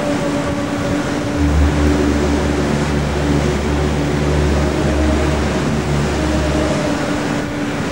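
Layered soundscape of steady droning tones over a dense rushing noise, with a deep low hum that sets in about a second and a half in and drops away near seven seconds.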